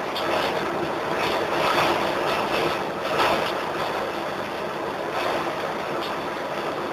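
Electric arc welding: the arc crackling and sizzling steadily, with irregular sharper pops.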